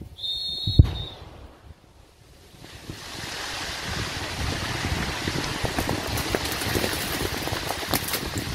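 Controlled detonation of an IED: a brief high tone, then a single sharp blast about a second in. A couple of seconds later a long rushing noise with scattered crackles follows as dirt and debris from the blast come down.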